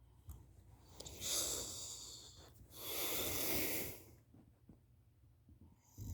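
A sleeping woman's heavy, snoring breathing: two loud, noisy breaths, the first about a second in and fading, the second about three seconds in and lasting about a second, with quiet breathing between.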